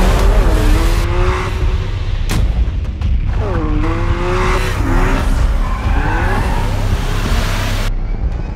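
Car engine and tyres in an edited sound mix: several pitch glides that fall and then level off, over a deep steady rumble, with one sharp hit about two seconds in.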